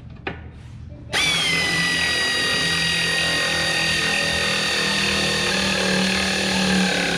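Handheld power tool motor running under load for about six seconds, starting suddenly a second in, with a steady high whine whose pitch sags slightly as it works.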